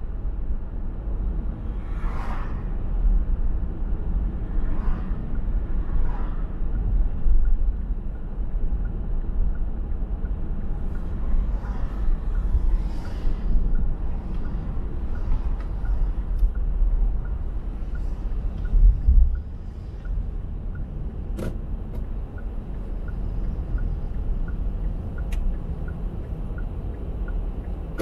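A car driving on a road: a steady low rumble of tyres and road noise with a few brief swells of passing hiss. A faint, even ticking comes in about halfway through and carries on to near the end.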